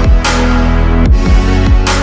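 Electronic dance music with a steady kick drum and a bright snare-like hit about every second and a half.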